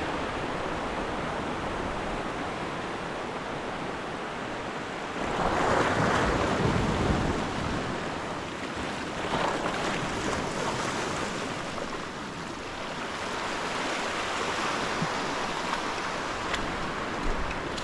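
Steady rush of ocean waves and wind, swelling louder for a couple of seconds about six seconds in.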